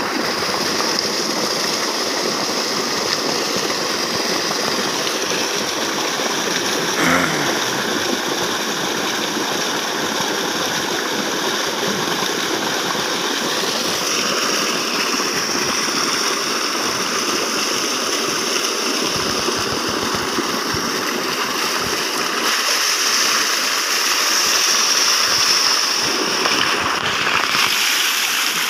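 Water gushing steadily from a pipe outlet into a shallow channel, a continuous rushing and churning.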